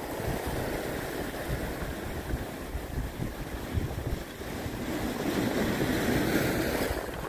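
A sea wave washing over a rocky breakwater: rushing, churning surf that swells again in the second half, with wind buffeting the microphone.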